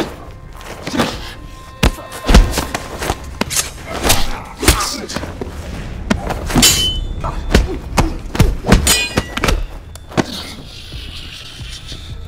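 Film fight sound effects: a rapid string of sharp punch and body-impact thuds as two men grapple on the floor, over a music score.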